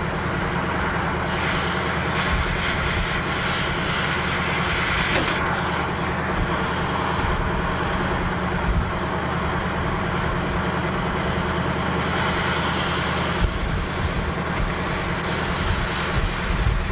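An engine idling steadily throughout, with three spells of hissing over it, the first about four seconds long, the later two shorter: a cutting torch being worked on the silo's steel hoop bands.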